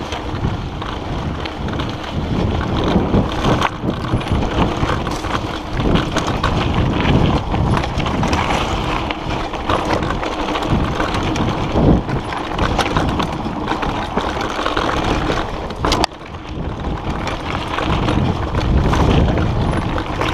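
Mountain bike descending a dirt and gravel singletrack: tyres running over the rough ground, the frame and parts rattling with frequent knocks over bumps, and wind rushing over the microphone. The noise drops briefly about three quarters of the way through, then picks up again.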